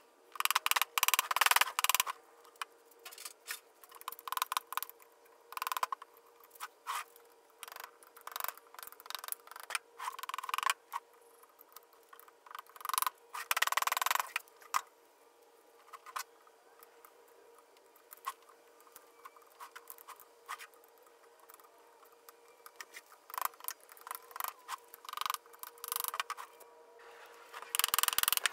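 Hand tools knocking, clicking and scraping against a VW 1600 engine case while it is taken apart: irregular sharp taps with a few longer scraping spells, over a faint steady hum.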